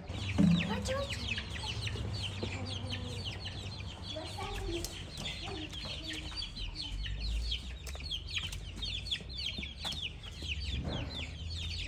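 Chicks peeping nonstop in fast, high, downward-sliding chirps, with a mother hen's low clucks now and then; a brief low sound just after the start is the loudest moment.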